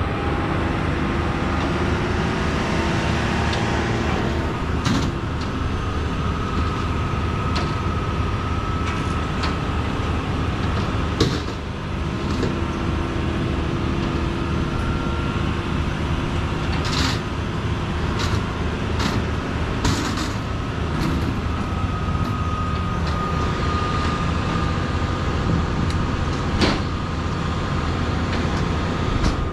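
A large engine running steadily with a thin whine over it, and scattered knocks and clanks of metal, the sharpest about eleven seconds in and again near the end.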